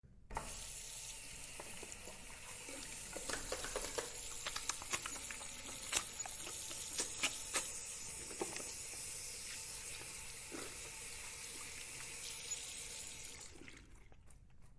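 Tap water running into a sink while hands are washed under it, with irregular splashes as the hands move through the stream. The water stops shortly before the end.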